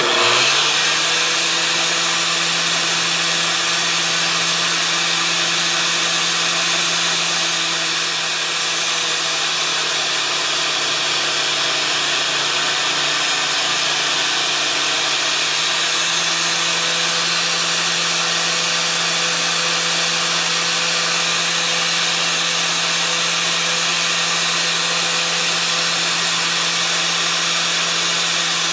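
Electric angle grinder switched on and spinning up to speed, then running steadily while a steel lawn mower blade is ground against its T27 flap disc. The motor's hum sits slightly lower from about eight seconds in, and rises again around sixteen seconds.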